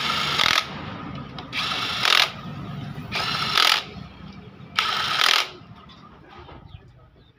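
Cordless drill driving in the bolts of a motorcycle's crankcase side cover, in four short runs of about half a second each, spaced a second or so apart.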